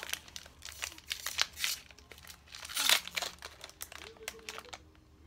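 Packaging of a Disney mystery pin pack being torn open and crinkled by hand, in irregular crackling bursts, loudest about three seconds in and quieter near the end.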